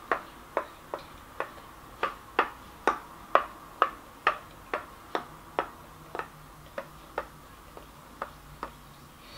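A small toy piece tapped repeatedly on a wooden alphabet puzzle board, light even clicks about twice a second.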